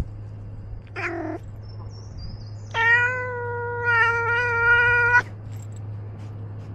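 Domestic cat meowing: a short meow about a second in, then one long drawn-out meow of more than two seconds held at a steady pitch.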